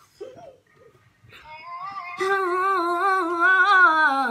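A boy singing a drawn-out, wavering melody line, coming in about a second and a half in and stepping down in pitch near the end.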